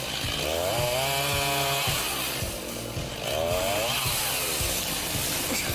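Two-stroke chainsaw running and revving, its pitch rising and falling twice as it works.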